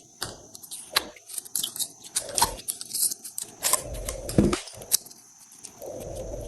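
Slime being squished and poked by hand, giving irregular sharp clicks and crackles.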